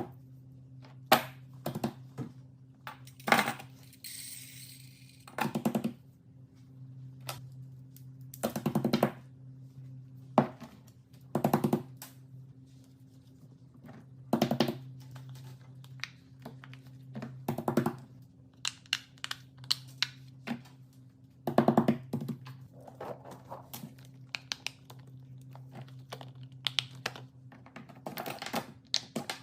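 Small hard objects clicking and knocking irregularly, now single taps, now short rapid runs of clicks, as they are handled and set down on a hard surface. A steady low electrical hum runs underneath.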